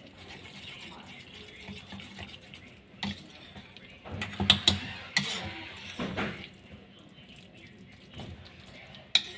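A metal spoon stirring thick, wet semolina batter with chopped vegetables in a steel bowl: soft squelching and scraping, with a few sharp clinks of spoon against the bowl, loudest in a cluster about four to five seconds in and once more near the end.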